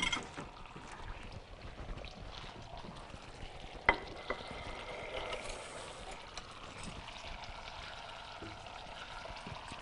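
Chicken pieces sizzling faintly in glaze in a non-stick frying pan, with a wooden spatula scraping and tapping as they are turned. A sharper click comes about four seconds in.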